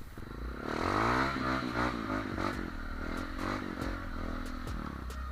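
Off-road motorcycle engine revving up and down, then running more steadily, with scattered clattering clicks over it.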